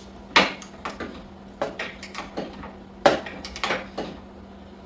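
Metal hand tools, a wrench and socket, clinking and clanking against metal in a series of irregular sharp knocks, as they are handled and fitted on the motorcycle's rear axle nut.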